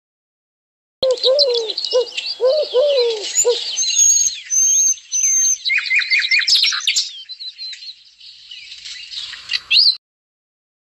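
Birds chirping and singing, with many quick high calls overlapping. A lower, repeated call joins them over the first few seconds. The sound starts and stops abruptly.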